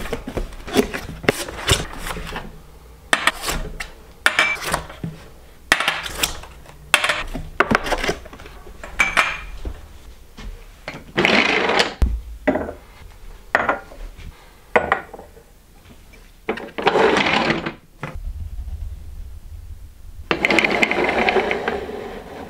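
A run of short clicks, knocks and clatters as objects are handled and set down. Then come three longer rattling slides of a second or two each, the last near the end, as the zebrawood tambour door's slats roll along their track.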